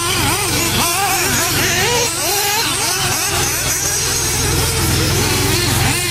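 Several small nitro engines of 1:8-scale RC off-road buggies screaming as they race. Their pitch keeps rising and falling as the throttles open and close, with several engines overlapping.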